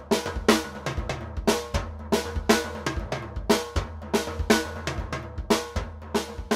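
TAMA Club-JAM Pancake drum kit, a small poplar-shell kit with an 18-inch bass drum and 12-inch snare, played in a steady groove. The loudest strokes fall about twice a second, with lighter strokes between them and bass drum hits underneath.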